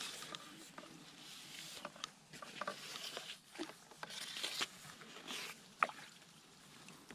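Handling noise from a landing net and its pole being moved about: irregular rustling with scattered small clicks and knocks, and one sharp click near six seconds in.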